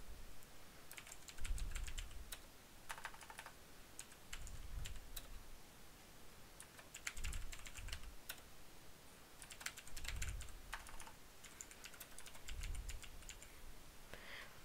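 Typing on a computer keyboard: several short runs of faint keystroke clicks with pauses between them, as a name is keyed in.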